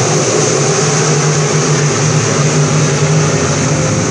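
A pack of dirt-track sport modified race cars running together around the oval, their engines blending into one steady, loud drone.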